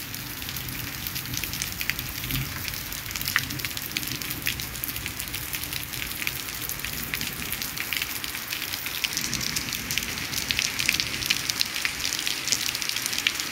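Rain falling steadily on a wet street and trees, a dense hiss full of tiny drop ticks, as a good rain sets in; it grows a little heavier about nine seconds in.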